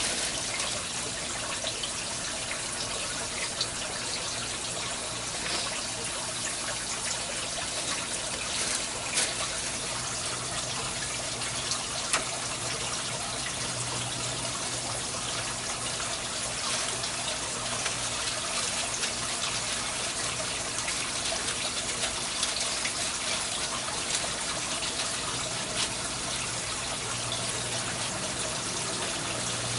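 Water trickling and splashing steadily in an aquaponics grow bed of lava rock, with a few light clicks as rocks are shifted by hand.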